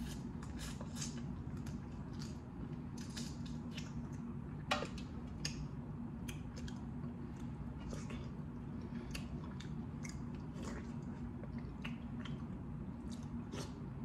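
Close-up eating of boiled blue crab: wet mouth smacks, sucking and small crackles as meat is pulled from the shell with the fingers and chewed, in quick scattered clicks over a steady low hum.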